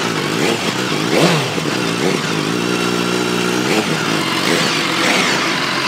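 BMW S1000R's 999 cc inline-four engine, exhausting through an Akrapovic silencer, revved repeatedly in short blips. The pitch jumps up and falls back about once a second, and is held steady for about a second midway.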